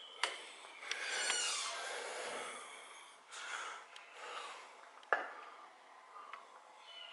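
Scuffing and scraping on a gritty, dusty floor with rustling and a few sharp knocks, the loudest about five seconds in.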